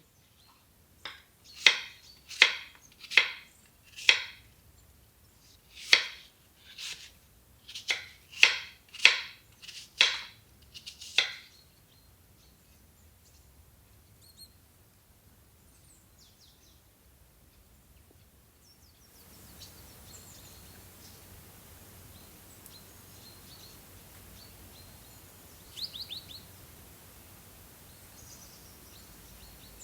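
A knife chopping on a cutting board: about a dozen sharp strokes at an uneven pace over the first ten seconds or so. After a pause, soft outdoor ambience comes in about two-thirds of the way through, with a few faint bird chirps.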